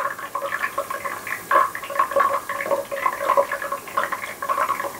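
Thin potato slices deep-frying in rapeseed oil at about 180 °C in a steel pot, the oil bubbling and sizzling steadily around them as the slices cook to chips.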